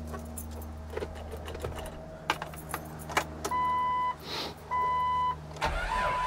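Keys clicking and jangling at the ignition of a 1997 Jeep Wrangler TJ, two steady warning-chime beeps, then about five and a half seconds in the starter begins cranking the engine on a battery that is a little weak.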